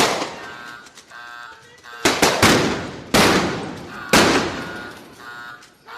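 Gunshots in a gun-fight sound effect: five sharp shots at uneven spacing, the second and third close together, each trailing off in a long echo, with thin metallic ringing tones in the gaps between them.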